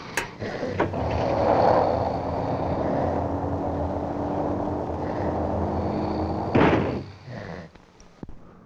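A sharp click, a second click, then steady rushing noise, cut off by a door slamming shut about six and a half seconds in.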